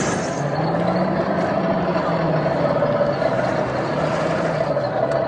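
Electric motor of an Axial SCX10 II RC crawler whining, its pitch rising and falling as it drives through a shallow stream, over the steady rush of river water flowing around rocks.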